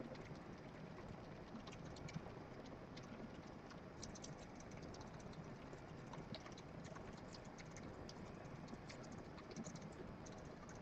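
Faint, irregular little clicks and scratches of a dwarf hamster's claws pawing at a wall, over a steady low hiss.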